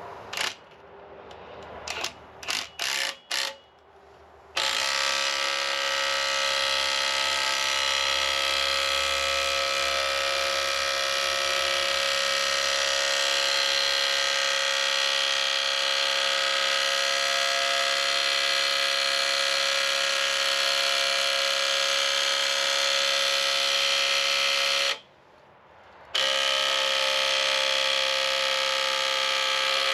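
A power tool's motor runs: a few short blips, then a long steady run at constant speed of about twenty seconds, a stop of about a second, and a second steady run.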